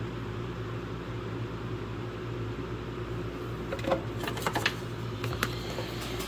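Steady low mechanical hum, with a cluster of clicks and knocks about four to five and a half seconds in as a handheld heat gun is picked up and handled.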